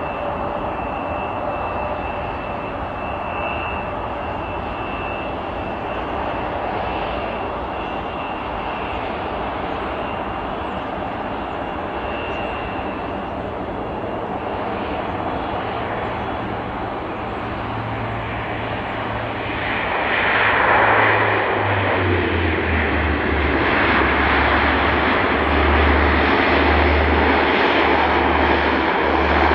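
Saab 340 twin-turboprop airliner landing, its engines and propellers running with a steady high whine over a drone. About twenty seconds in it grows louder as the plane rolls down the runway toward the microphone, with a low pulsing propeller thrum underneath.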